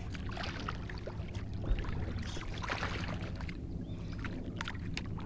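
Water sloshing and splashing beside a small fishing boat as a hooked bass is played close in. Light knocks and clicks come over a steady low hum, and the splashing is busiest around the middle.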